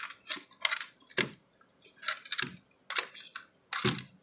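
Irregular sharp plastic clicks and knocks, about a dozen over a few seconds, from handling a small plastic camcorder.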